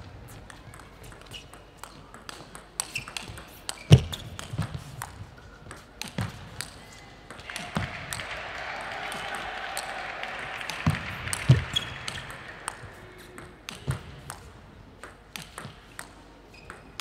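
Table tennis ball clicking sharply off bats and the table in quick rallies, with a few heavier thuds among the clicks. Around the middle comes a spell of crowd noise.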